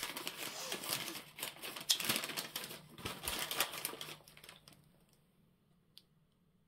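Paper rustling and crinkling as a letter and its envelope are opened and handled, a quick run of crackles and clicks that fades out about five seconds in, with one small click near the end.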